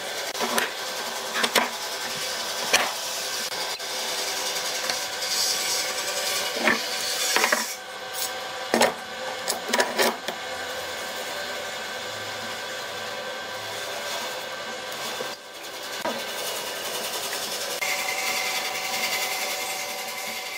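A small power tool runs steadily while working wood, with a few sharp knocks scattered through the first half.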